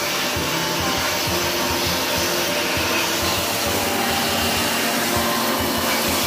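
Handheld electric air blower running steadily, blowing air into an opened split-type air conditioner indoor unit to clear out dirt.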